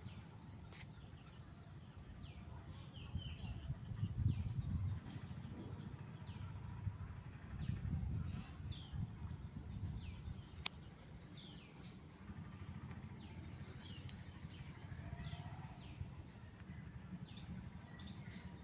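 Outdoor ambience of a steady insect chorus, a high pulsing buzz, with repeated short falling bird chirps over it. A low rumble underneath swells twice, about four and eight seconds in.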